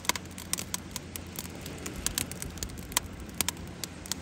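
Wood fire crackling in a barbecue brazier, with sharp, irregular pops several times a second.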